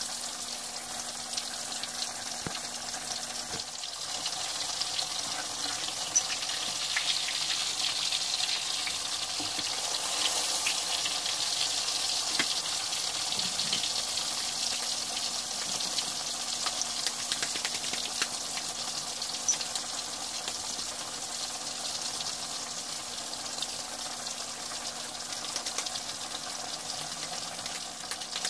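Chapli kababs shallow-frying in hot oil in a cast-iron skillet: a steady sizzle with many small crackles and pops, a little louder in the middle.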